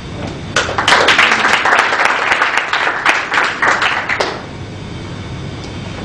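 Audience applauding: a short round of clapping that starts about half a second in and stops about four seconds in.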